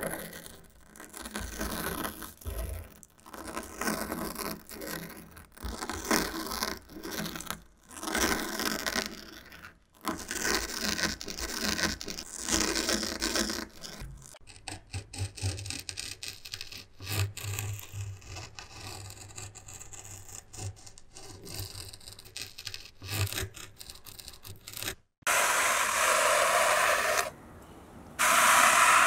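A knife blade cutting through the nylon bristles of a plastic scrub brush in repeated rasping, sawing strokes, quieter in the middle. About four seconds before the end it switches to a loud, steady scrape of a squeegee pushing snow across a rug, with a short break.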